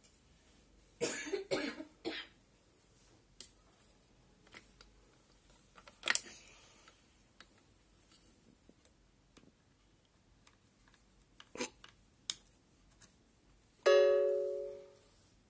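A person coughing a few times about a second in and again briefly near the middle, with a few scattered small clicks, then near the end a short pitched ringing tone that fades out over about a second.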